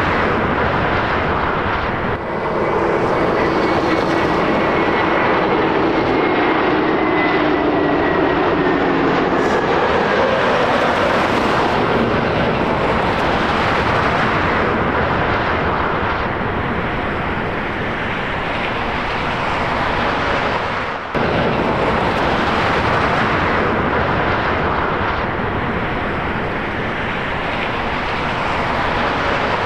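Airbus A321 jet airliner on approach and landing, its engines giving a steady rushing noise with faint whining tones that slide slowly down in pitch as it passes. There is a short break about 21 seconds in.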